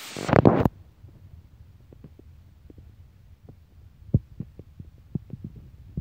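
Microphone handling noise from a phone carried while walking: a loud rubbing bump about half a second in, then the open air sound cuts off as if the microphone were covered, leaving muffled, irregular thumps and taps.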